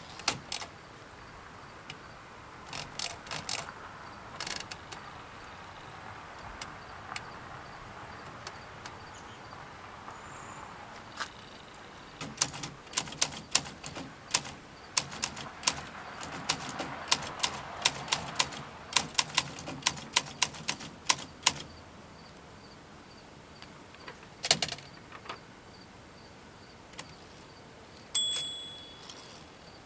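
Olympia SM9 manual typewriter typing: scattered keystrokes, then a fast run of keystrokes lasting about nine seconds in the middle. A short ringing tone comes near the end.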